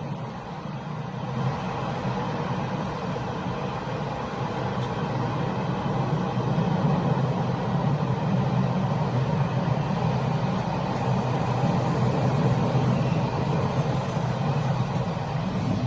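Running noise of a Taiwan Railway Chu-Kuang express train, heard from the gangway connecting two passenger carriages. It grows louder over the first several seconds, then holds steady.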